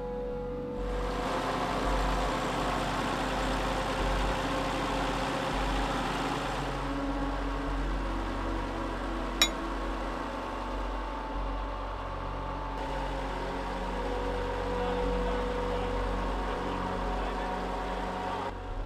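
Engine of a truck-mounted borehole drilling rig running steadily under drilling, with one sharp clank about halfway through.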